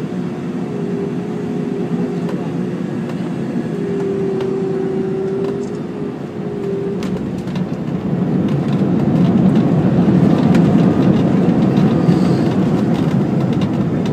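Airliner cabin noise on landing: a steady engine whine and rushing noise over a rumble with scattered rattles and clacks as the wheels roll on the runway. The noise swells louder about eight seconds in, typical of reverse thrust on the landing roll.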